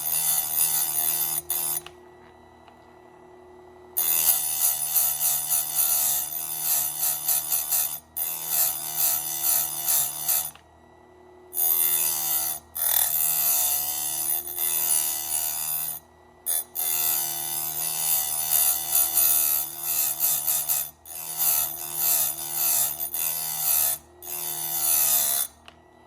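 Chainsaw fitted with its chain turned backwards, cutting in repeated bursts of a few seconds with short pauses between them.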